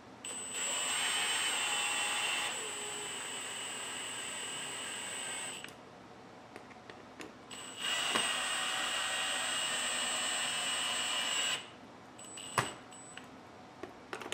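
Cordless drill running in two long steady runs of several seconds each, driving small screws into a snowmobile's taillight mount. The second run starts about two seconds after the first stops, and a short sharp click follows near the end.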